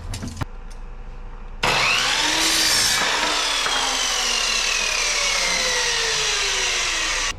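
Power saw cutting through wood: a loud, steady cutting noise that starts suddenly about a second and a half in, its whine sliding steadily down in pitch under load, and cutting off abruptly near the end. A couple of light knocks come just before it.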